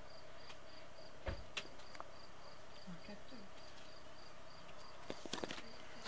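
A cricket chirping steadily in short high pulses, about four a second, over a steady low hum. A single soft thump comes about a second in.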